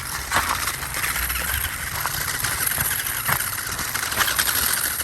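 Small remote-control toy car with a two-wheel drive running over the ground: a steady rough whir of its little electric motor and wheels, with a few short clicks.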